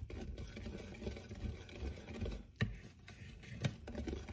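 Wire whisk beating thick rice-flour and coconut-milk batter in a ceramic bowl: soft, uneven stirring, with two sharp clicks of the whisk hitting the bowl, one a little past halfway and one near the end.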